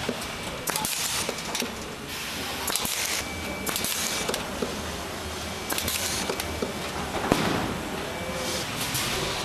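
Factory floor noise: a steady din broken by several short bursts of hiss, each about half a second long, and scattered sharp clicks.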